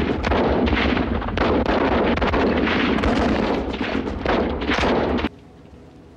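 Battle sound: dense, rapid gunfire mixed with explosions, cutting off abruptly about five seconds in and leaving a much quieter background.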